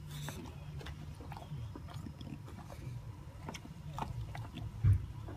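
English bulldog licking and gnawing a homemade dog ice cream cone on the ground: wet mouth clicks and lapping over the dog's steady breathing, with one loud low thump about five seconds in.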